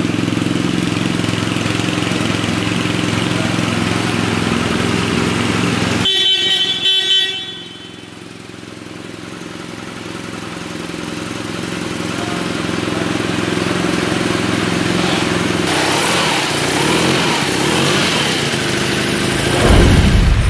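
A BMW R nineT's 1170 cc boxer twin idling steadily, stopping abruptly about six seconds in. A short high-pitched tone follows, then a quieter background hiss that slowly grows louder.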